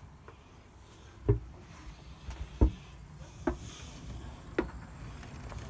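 Footsteps on a sailboat's wooden companionway steps as someone climbs out of the cabin: four dull thumps about a second apart.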